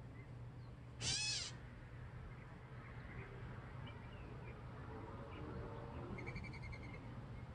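Gray catbird giving one loud, cat-like mewing call about a second in, rising and then falling. Faint high chirps follow, with a short rapid series of high notes near the end.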